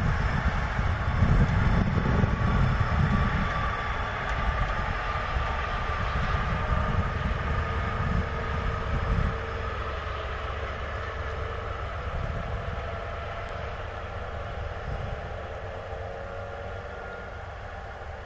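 Vossloh G 1206 diesel-hydraulic locomotive running light past and drawing away, its engine sound fading steadily; the deep rumble drops off about nine seconds in.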